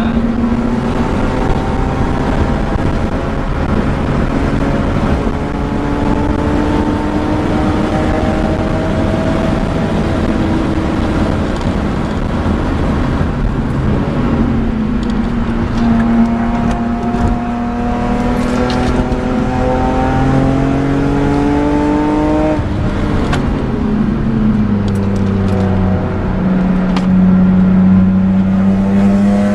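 BMW M3 E46's 3.2-litre S54 straight-six with a Supersprint exhaust, heard from inside the cabin under track driving. The engine note climbs slowly in pitch for long stretches, falls about halfway through, then drops sharply about two-thirds of the way in and climbs again near the end.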